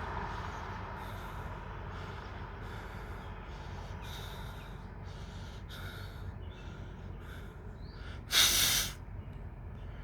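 Federal Signal 2001-SRN rotating tornado siren sounding faintly, its tone fading as the rotating horn faces away, over steady background noise. About eight and a half seconds in comes a short, loud burst of noise.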